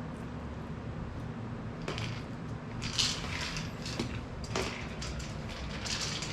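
A few short plastic clatters and scrapes, about five over the span, like a dog's treat-dispensing toy ball being knocked about on a hard floor, over a steady low hum.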